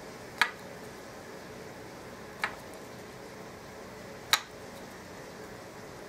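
Three short, sharp clicks about two seconds apart over a steady faint hiss.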